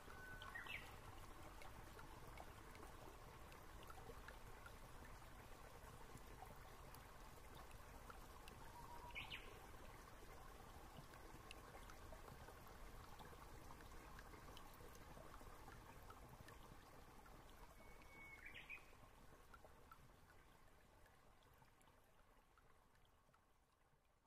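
Faint steady running-water hiss with three short rising bird-like chirps about nine seconds apart, fading out near the end.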